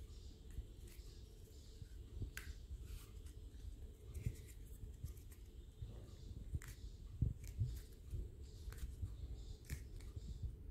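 Faint handling noise of hands pressing a sponge-foam ring onto a small plastic cup: scattered light clicks and scuffs of foam and plastic.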